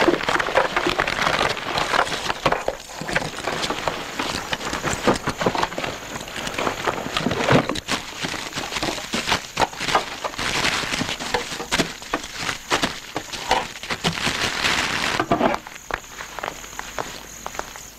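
Dense crackling noise full of sharp clicks and pops, going on steadily for about fifteen seconds and then dropping away abruptly.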